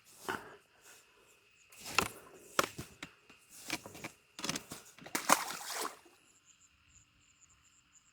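Irregular bursts of splashing and rustling, typical of a freshly landed carp being handled and flapping. A faint steady insect chirp is heard in the last couple of seconds.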